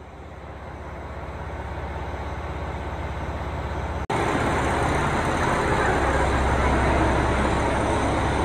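Trains standing at a station platform: a steady low rumble that fades in over the first four seconds, then, after a cut about four seconds in, a louder steady rumble.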